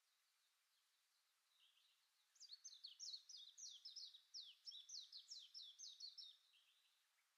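Faint bird song: a rapid run of short, high notes, each sweeping downward. It starts about two seconds in and goes on for about four seconds.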